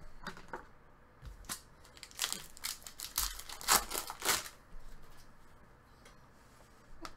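Foil trading-card pack torn open by hand and its wrapper crinkled: a run of short rips and crinkles that dies away after about four and a half seconds.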